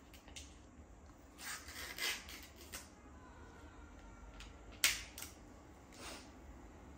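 Soft handling noises in a small quiet room: a few light rustles and clicks of small objects and cloth being moved, with one sharper click a little after the middle.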